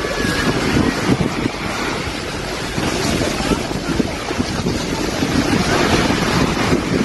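Wind buffeting a phone's microphone on a beach, with waves washing on the shore behind it.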